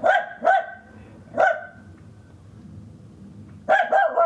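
A dog barking in short, separate barks: two at the start, one about a second and a half in, then a quick run of three near the end.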